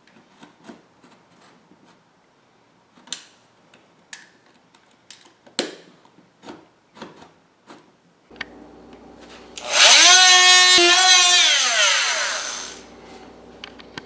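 Scattered knocks and clicks of tools and wood being handled, then a power tool's motor whines up suddenly about ten seconds in, runs briefly and winds down with falling pitch.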